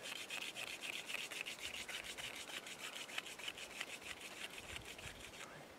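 Hand-drill friction fire: a wooden spindle spun rapidly back and forth between the palms, grinding in the notch of a cedar hearth board with a fast, even, dry rubbing rhythm that stops shortly before the end. The spindle is sticky with sap ("too tacky"), and this drilling is what produces the coal.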